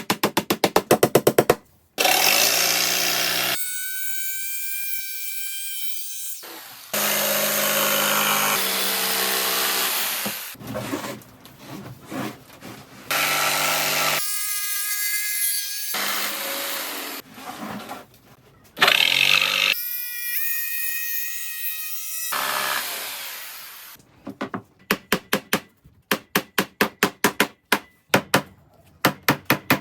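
Power tools working wood in several separate bursts, a sawing or drilling sound with a steady whining note. Near the end comes a run of sharp knocks, about three a second.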